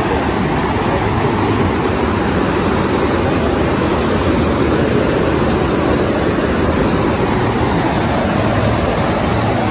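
FlowRider surf simulator's pumped sheet of water rushing steadily over the riding surface, a loud, even rushing noise.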